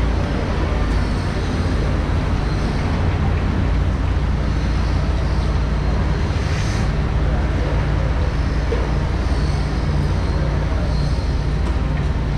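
Steady low hum of running machinery, with an even background din.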